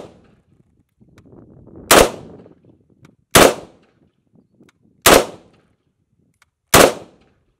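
Four single shots from a Zenith Z43P, an HK93-style roller-delayed .223 clone, spaced about a second and a half apart. Each is a sharp crack followed by a short echo that dies away in about half a second.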